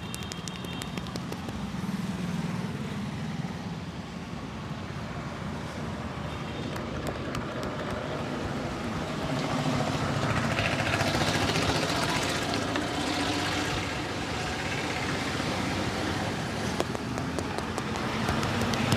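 Street traffic going by, with a louder vehicle passing about ten seconds in, and a few sharp clicks near the start and end.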